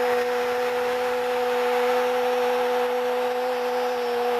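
A TV football commentator's long, unbroken "goal" cry held on one steady note, over the roar of a stadium crowd celebrating a goal.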